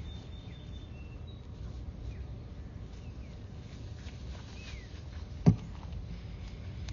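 Outdoor background of a low steady rumble with a few faint bird chirps, and one sharp knock about five and a half seconds in.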